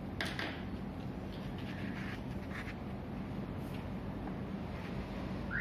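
Pen writing on paper: a few faint, short scratching strokes over a steady low hum, with a short squeak near the end.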